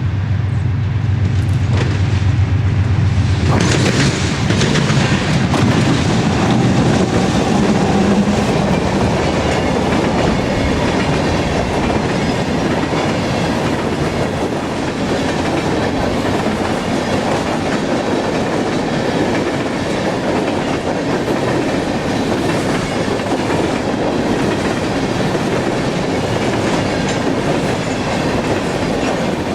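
Freight train passing close by: a diesel locomotive's engine hum for the first few seconds, then a steady rush of freight cars rolling past with wheels clicking over the rail joints.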